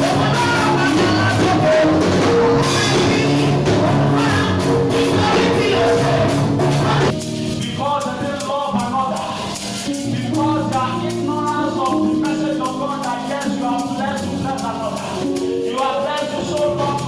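Church praise music: voices singing over a band with percussion keeping a steady beat. About seven seconds in, the sound drops abruptly to a thinner, quieter mix led by the singing voices.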